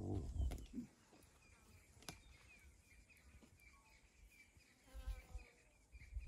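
A low animal growl with a deep, rumbling pitch in the first second. After it comes a faint, steady run of quick high chirps, with a short low grunt and call about five seconds in.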